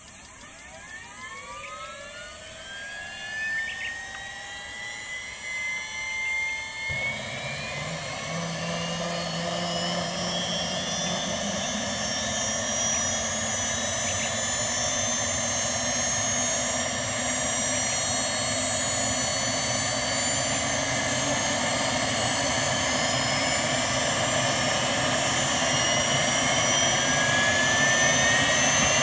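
Bell 206B-3 JetRanger III helicopter's Allison 250 turboshaft engine being started. A whine climbs in pitch and grows louder. About seven seconds in, a rushing noise joins suddenly as the engine lights off, and the whine keeps rising steadily as the turbine spools up and the rotor starts to turn.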